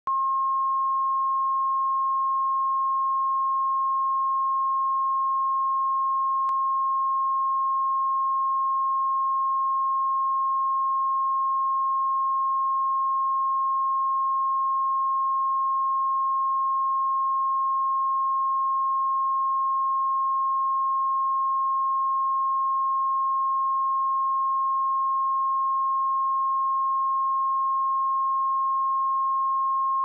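A pure 1072 Hz sine-wave test tone: a single high beep-like pitch, held steady at constant loudness without a break.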